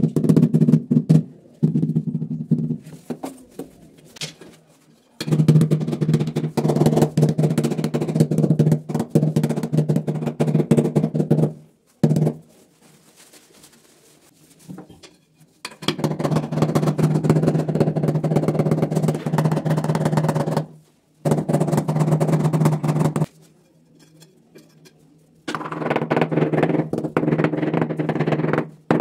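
Rubber mallet tapping ceramic floor tiles in quick runs of blows, bedding them into cement adhesive. There are several runs of a few seconds each, with quiet pauses between them.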